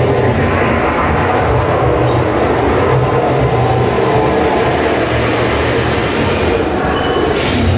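Test Track SIM car running along its track: a steady, loud rumble of the ride vehicle rolling and running, heard from a rider's seat.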